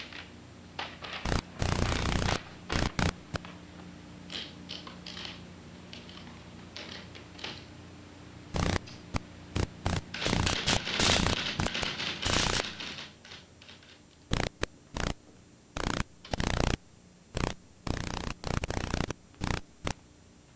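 Typewriter in use: scattered sharp key strikes, some in quick runs, with longer scratchy stretches of paper being handled and rolled through the carriage, the longest about halfway through.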